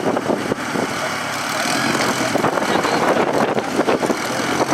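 Off-road rock crawler's engine running.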